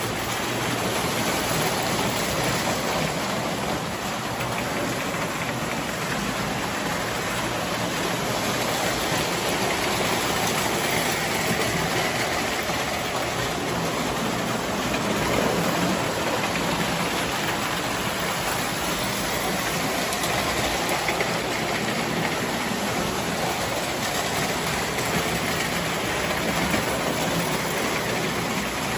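Toy electric trains running on three-rail track: a steady whir and rumble of motors and wheels on the rails.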